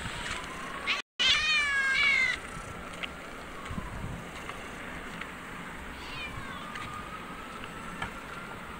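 A cat meowing: one loud, long call with a wavering pitch about a second in, and a fainter call near six seconds, over a faint steady high tone.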